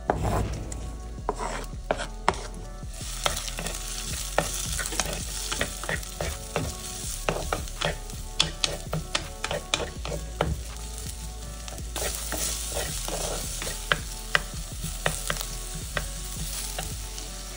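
Chopped onion is scraped off a wooden board into hot oil in a pan. It fries with a steady sizzle that builds after the first few seconds, while a wooden spatula stirs it, with frequent clicks and taps against the pan.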